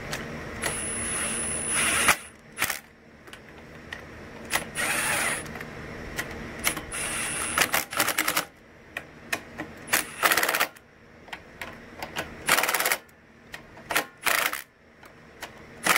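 Hand tools working metal fasteners: a few short runs of rapid clicking, then scattered sharp clicks and knocks, as the reassembled carburetor and fuel fittings of a Honda GCV160 mower engine are tightened.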